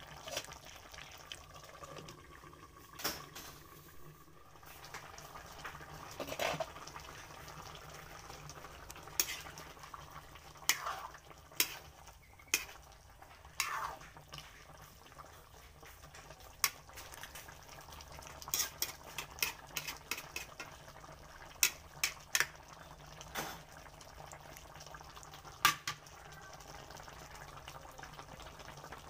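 Chicken pochero bubbling at a simmer in a metal wok, while a metal ladle stirs it and clinks against the pan in a dozen or so sharp knocks spread through the stretch.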